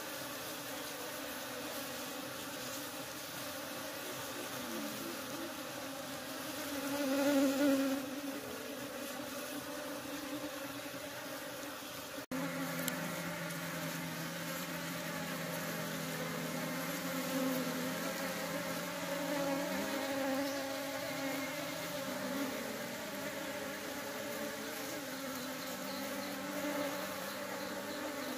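Many honeybees buzzing at their hive entrance, several wingbeat tones overlapping. The buzz swells briefly louder about seven seconds in and changes abruptly at a cut about twelve seconds in.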